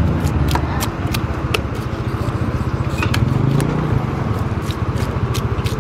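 A motorbike engine running with a steady low rumble, under a dozen or so sharp, irregular knocks of large knives cutting tuna against a wooden chopping block.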